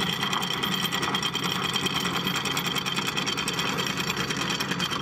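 Inboard engine of a 52-foot Jeanneau sailing yacht running steadily under way, with a fast, even beat.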